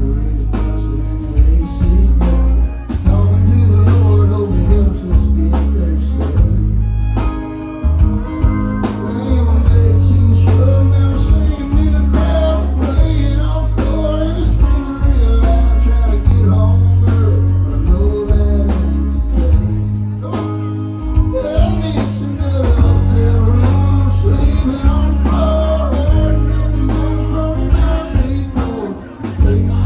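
Live band playing a song with a male lead singer, guitar and a heavy bass line.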